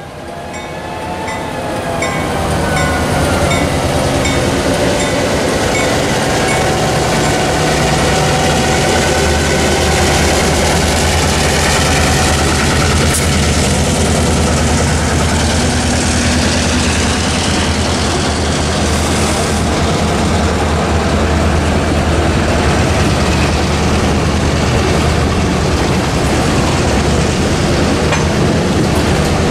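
Two EMD GP9u diesel locomotives pulling a freight train across a road crossing: the diesel engines run with a steady low hum while the boxcar and tank car wheels roll and clack over the rails. Early on, a mechanical crossing bell rings in a steady repeating pattern.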